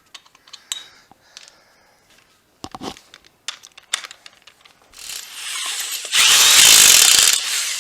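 Scattered clicks and knocks of hand work, then a power tool that builds up and runs loudly for about a second and a half near the end, during wheel and tire work on a jacked-up truck.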